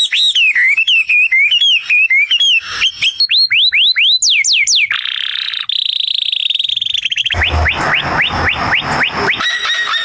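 A bird singing a varied whistled song: warbling phrases, then quick downward-sweeping notes, a buzzy trill about halfway through, then a fast series of repeated downward sweeps.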